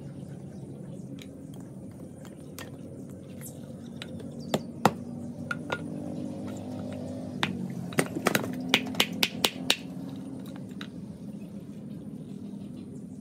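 Sharp snaps and cracks of kindling as a fire is got going in a clay charcoal stove: a few single snaps, then a quick run of about eight some eight seconds in.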